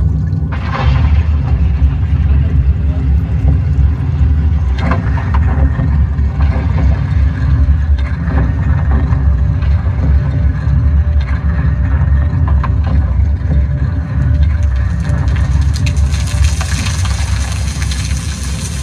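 Loud, deep rumble from a stage show's loudspeakers, with a few sharp cracks along the way and a rising hiss coming in near the end.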